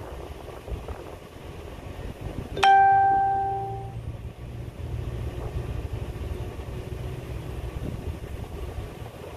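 A small boat's outboard motor running low as the boat backs off its trailer, under a steady low rumble. About two and a half seconds in, a single loud metallic ding rings out and fades over about a second.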